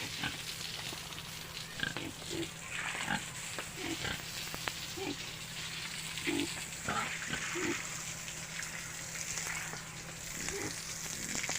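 Pigs grunting in short, scattered grunts, over a light crackle of clicks.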